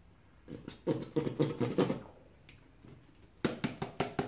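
Plastic squeeze bottle of barbecue sauce sputtering and squelching as it is squeezed nearly empty over ribs in a slow cooker: a quick run of wet spurts, then a few sharper clicks near the end.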